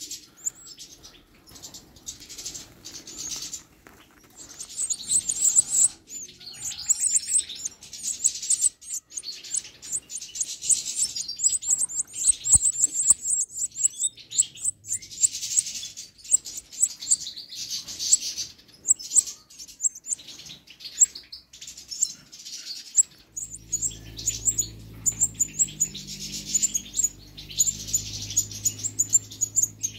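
European goldfinch nestlings giving rapid, high-pitched begging chirps in repeated dense bursts. A low steady hum comes in beneath them near the end.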